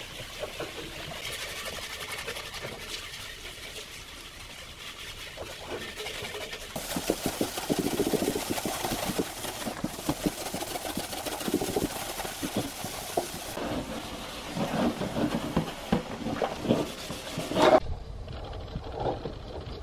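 Rubber-gloved hands scrubbing a rice cooker's stainless steel and plastic lids in a tub of soapy water: irregular rubbing strokes and water sloshing. A background hiss cuts off about two seconds before the end.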